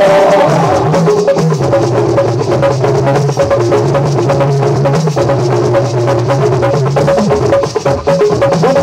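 Live church band playing an instrumental passage: drum kit and percussion keep a steady beat under held melodic notes and a bass line.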